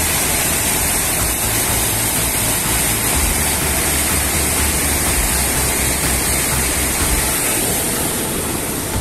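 Waterfall and a fast mountain stream rushing over rocks: a loud, steady roar of water.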